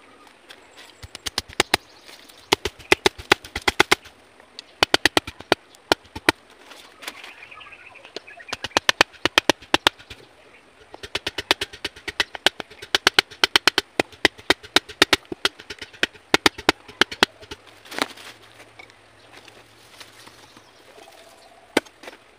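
A machete knocks against bamboo stakes and sticks in quick runs of sharp strikes, about eight a second, with short pauses between bursts.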